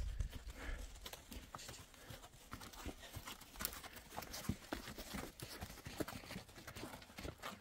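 Horses' hooves clopping at a walk on a sandy dirt trail: a faint, irregular run of soft clops.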